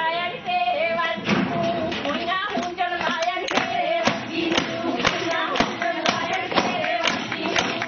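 Women singing a Punjabi boli together in one held, wavering line, over sharp rhythmic beats about twice a second that keep time for gidha dancing.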